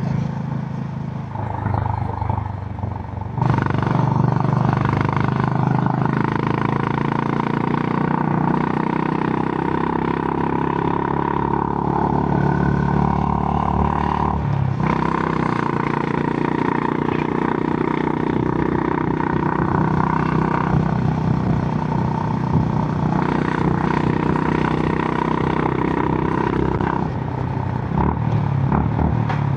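Honda GB350 (H'ness CB350) single-cylinder engine running through its stock exhaust while ridden. It picks up sharply about three and a half seconds in and pulls steadily, dips briefly about halfway, then eases off near the end.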